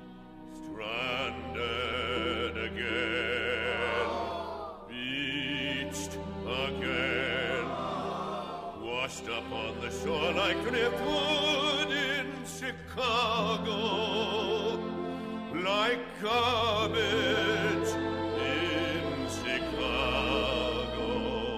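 Broadway cast recording of a show tune: operatic-style singing with wide vibrato over an orchestra, coming in strongly about a second in.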